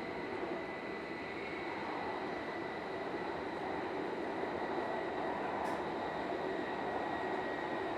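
E5 series Shinkansen running at speed, heard from inside the car: a steady rush of running noise with a thin steady high tone over it.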